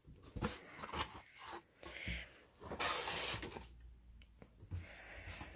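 A plush toy being pulled out of a cardboard box: its fabric and the cardboard rub and scrape in irregular bursts. The loudest is a scrape of about half a second, roughly three seconds in.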